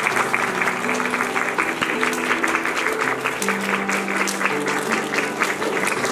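Audience clapping steadily, over instrumental music with slow, held low notes.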